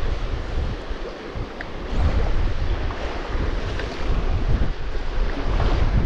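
Wind buffeting the microphone in an uneven low rumble over the steady rush of a shallow, riffling stream; the rumble picks up about two seconds in.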